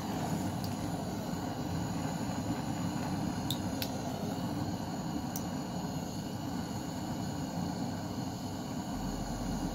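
Handheld butane torch burning with a steady rushing hiss as its flame plays on a liquid-filled glass light bulb, with a few faint ticks in the middle.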